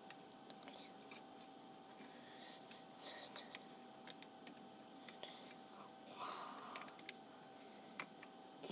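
Faint clicks and light knocks of plastic Lego pieces being handled, with a short rustle about six seconds in.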